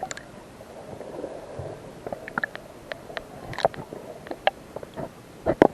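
Muffled water sloshing with scattered light clicks and knocks, as heard through a waterproof action-camera case in the sea; the loudest knock comes near the end.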